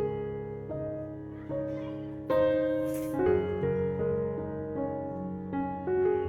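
Soft background piano music, with notes held and changing chords.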